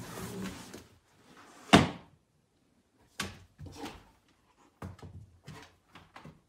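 Knocking and thumping: one loud thump a little under two seconds in, then about five softer knocks at irregular intervals.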